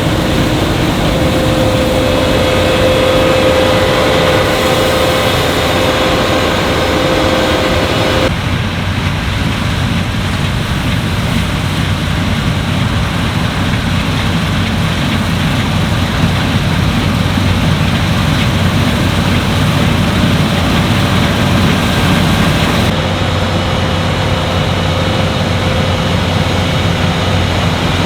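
Claas Lexion 8900 combine harvester running while harvesting wheat: a steady engine and machinery drone with a steady whine over it. The sound changes abruptly about eight seconds in and again near the end.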